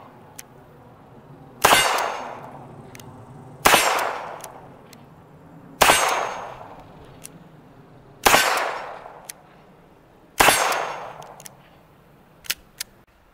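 M1895 Nagant revolver firing 7.62x38mm Nagant surplus rounds: five shots about two seconds apart, each trailing off over about a second. Two faint clicks near the end.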